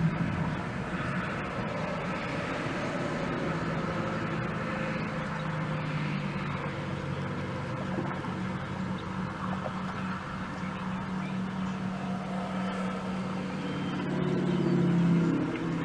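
Steady low hum of a running vehicle engine under gusting wind noise, swelling for a moment near the end.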